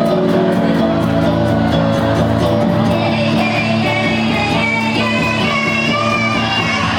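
Live rock band playing through a poor, distorted PA, with drums, guitar and bass keeping a steady beat, some singing and a crowd shouting along.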